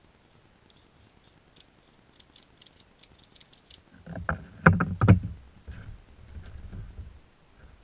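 Metal hardware of a ratchet tie-down strap clinking faintly, then a cluster of loud knocks and thumps on a plywood boat deck about four to five seconds in, followed by lighter rumbling knocks.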